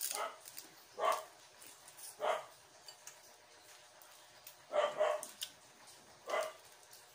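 A dog barking: a series of short barks at uneven intervals, one to two seconds apart.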